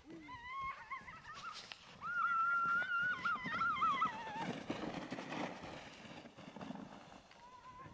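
A child's high-pitched squeal, held long with a wavering pitch and dropping away at the end, while riding a sled down a snowy slope, followed by softer rustling.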